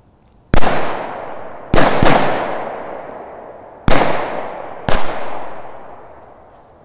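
Five large firecrackers going off one after another, two of them close together, each a sharp bang trailing off in a long echo through the woods.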